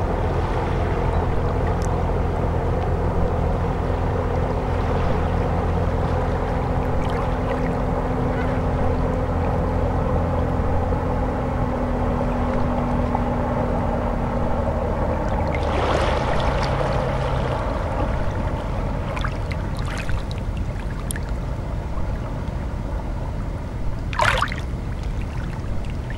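Steady low droning hum made of several held tones under a soft hiss. One of the tones drops out about halfway through, and a short sharp noise stands out near the end.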